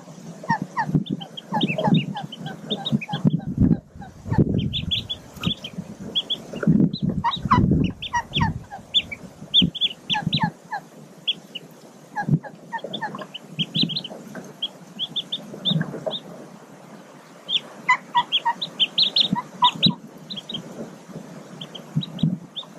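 Newly hatched mallard ducklings peeping: runs of short, high chirps, several a second, coming and going, over low muffled rustles and thumps of movement in the nest.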